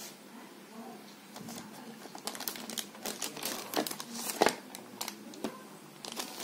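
Clear plastic wrapping around a set-top box crinkling as a hand handles the packed unit in its carton. Irregular sharp crackles start about two seconds in.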